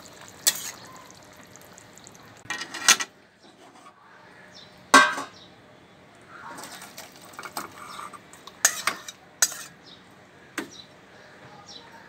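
Metal spatula clanking and scraping against an aluminium kadai and a metal pot as fish curry is scraped from one into the other: several separate sharp clinks, the loudest about five seconds in.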